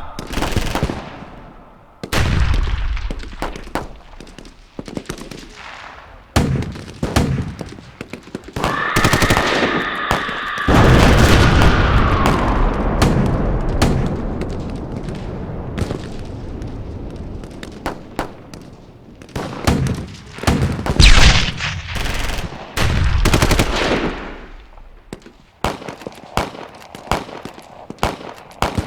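Background battle gunfire: scattered single shots mixed with rapid automatic bursts, with a long, dense, loud volley in the middle. Partway through, a high pitched tone is held for about three seconds and then falls away under the shooting.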